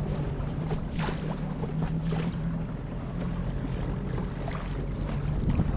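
Mercury 8 hp two-stroke outboard motor running steadily under way, a constant low engine hum under a hiss of water and wind.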